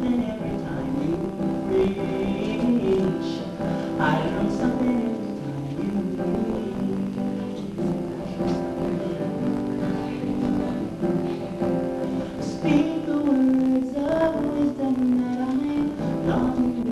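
A woman singing a slow melody while accompanying herself on acoustic guitar.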